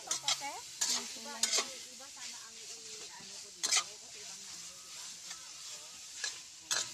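Shredded meat sizzling in a hot stainless steel wok as a metal spatula stirs it: a steady frying hiss, broken by a handful of sharp scrapes of the spatula against the pan.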